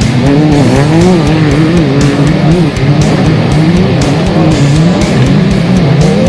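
An off-road race buggy's engine revving up and down in quick swings, mixed with rock music that has a steady beat about twice a second.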